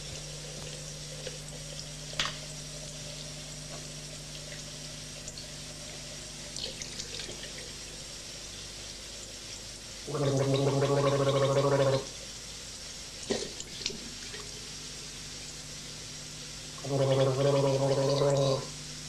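A person gargling water twice, each gargle a steady, low-pitched bubbling held for about two seconds, the first about halfway through and the second near the end.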